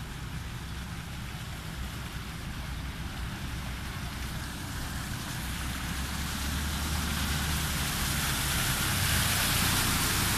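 Motor scooter riding through floodwater on a road, its engine and the splash and spray from its wheels growing louder as it comes close near the end, over a steady hiss of water.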